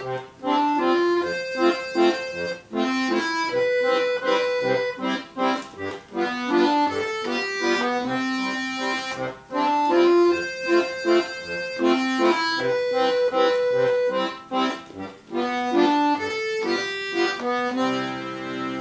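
Solo bayan, a Russian chromatic button accordion, playing a song melody over bass notes and chords, swelling into a held chord near the end.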